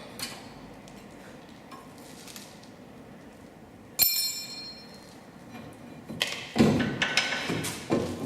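Metal-on-metal work on a car's front brake assembly: a single sharp clink that rings on briefly about halfway through, then a run of knocks and clatters near the end.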